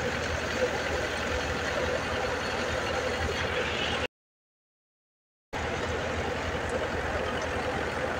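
Tractor-driven drum thresher running steadily, with the YTO EF604 tractor's engine held at a low speed of about 1,400–1,500 rpm. The sound cuts out completely for about a second and a half just past the middle, then comes back the same.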